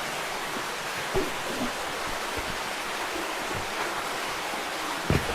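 Steady rushing of a creek flowing through a cave, with a couple of soft low thumps about a second in and near the end.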